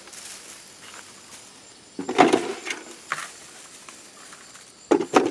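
Shredded paper rustling as it is tipped from a plastic bucket and dropped by hand into a chest freezer. It comes in two short spells of crackly rustling, one about two seconds in and one near the end.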